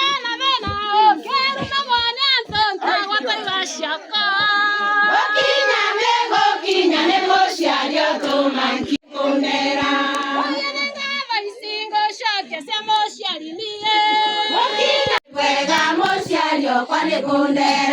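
A group of voices singing together, choir-style, cut off by two sudden brief breaks about nine and fifteen seconds in.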